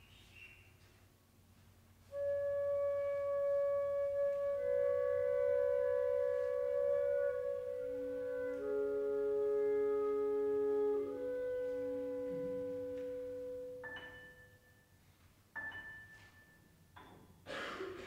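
Flute and clarinet playing a slow piece. After a quiet opening, long overlapping held notes come in about two seconds in and die away by about fourteen seconds, and a few short separate notes follow near the end.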